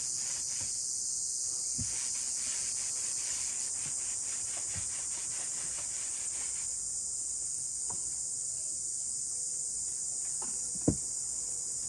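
Crickets chirping in a steady, high, continuous drone, with faint handling clicks and one sharp knock near the end.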